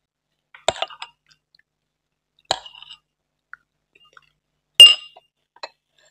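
Glass tableware clinking: a spoon and glass dishes strike three times, about two seconds apart. The last clink is the loudest and rings briefly.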